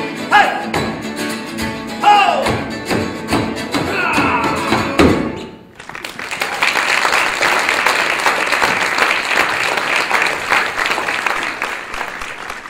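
Men's voices with acoustic guitar and mandolin singing the closing notes of a folk song, with sliding pitches, ending about five seconds in. An audience then applauds, fading out near the end.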